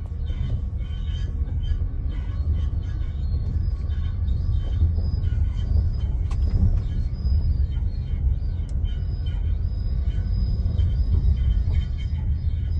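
Steady low vehicle rumble, like a car running or driving, with music faintly over it.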